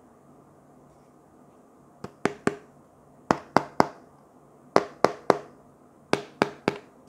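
Fingers tapping on a cardboard product box: four quick groups of three sharp taps, each tap with a short hollow ring, starting about two seconds in.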